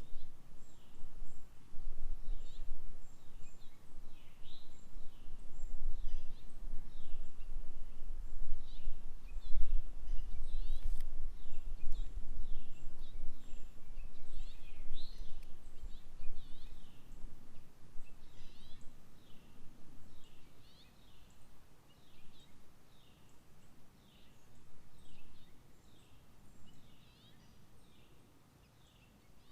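A songbird calling over and over, a short falling chirp about once a second, over a low rumble that is loud for the first two-thirds and then fades away.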